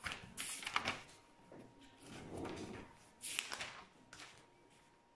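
Pages of a large paper workbook being turned and smoothed down by hand: rustling sweeps of paper in the first second and again a little after three seconds.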